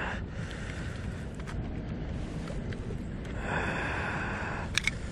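A small retractable tape measure's tape running through its case for about a second and a half, ending in two sharp clicks near the end, over steady low wind noise.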